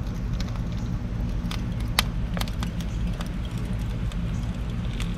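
Lump charcoal crackling and popping under chicken wings on a kamado grill grate, scattered clicks over a faint hiss. A steady low rumble runs underneath.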